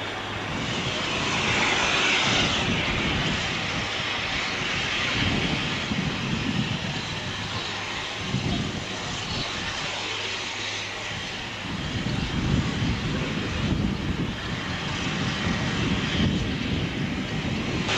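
Steam tank locomotive No. 90 working slowly out of the station with its train: slow, uneven exhaust chuffs over a hiss of steam that is strongest about two seconds in.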